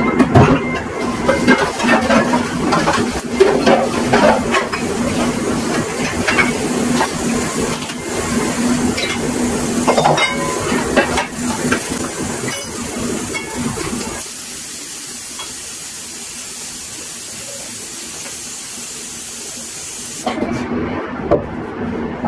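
Steel pots, pans and utensils clanking and clattering over a steady hiss and a low steady hum. The clatter stops about two-thirds of the way through, leaving only the high hiss, which cuts off near the end.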